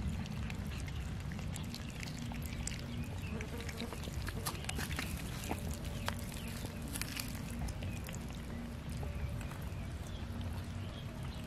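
Cats chewing and tearing at raw chicken: irregular wet smacks and sharp clicks of eating, over a steady low rumble.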